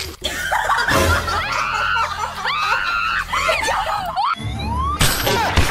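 A young woman screaming and wailing in repeated high, curving cries after a messy fall into wet mud, with a splat at the very start as she lands in the mud.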